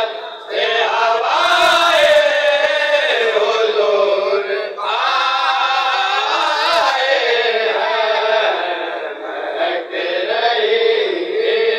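A group of men chanting in unison through a microphone, in long melodic phrases with short breaks about every five seconds.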